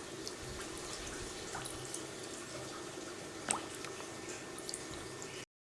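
Water trickling and dripping into a catfish tank, with scattered small splashes and one sharper splash about three and a half seconds in. The sound cuts off just before the end.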